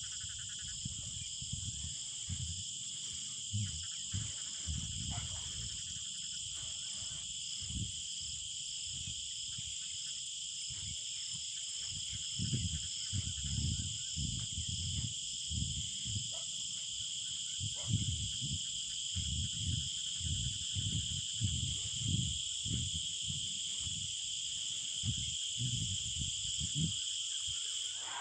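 Steady, high-pitched chorus of insects such as crickets, with irregular low bumps and rumbles beneath it.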